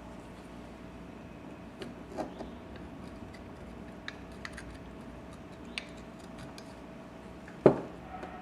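Flathead screwdriver scraping and tapping at residue inside a motorcycle carburetor float bowl: scattered light metal clicks and ticks, with one louder knock near the end.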